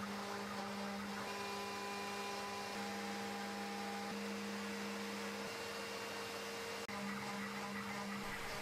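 CNC router machining a plywood sheet: the spindle and the shop vac on the dust shoe run with a steady hum. Several held tones change every second or two as the axes change speed and direction along the cut.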